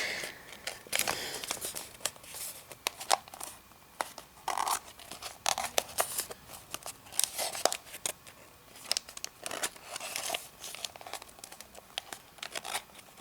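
Paper rustling and crinkling in irregular short bursts with small clicks as the folds of an origami model are creased by hand.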